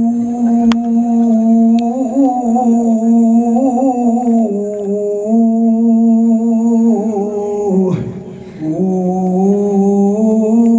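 A man's voice holding one long wordless sung note, wavering slightly in pitch. About eight seconds in he breaks for breath and takes the note up again a little lower.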